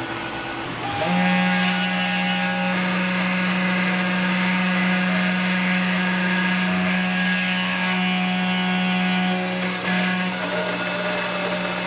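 Comgrow Robo 3018 CNC router's 775 DC spindle motor running at a steady pitch as its bit carves into a wood board. The louder spindle-and-cutting sound comes in about a second in, replacing a quieter steady hum.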